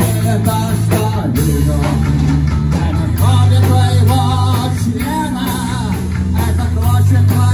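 Live rock band playing: electric guitar, electric bass and drum kit, with a voice singing over them and a strong bass line that changes notes every second or so.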